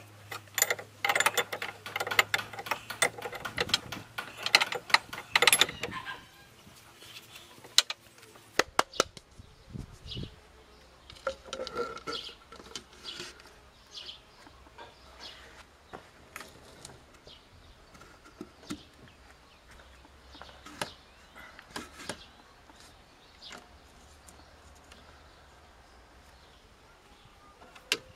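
Hand work at the threaded end of a car's inner steering tie rod: a dense run of quick clicks and rattles for the first six seconds, then scattered light clicks and knocks.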